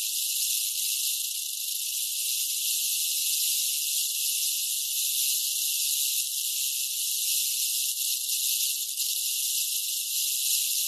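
Rattlesnake shaking its tail rattle in a continuous, steady high-pitched buzz: the snake's defensive warning.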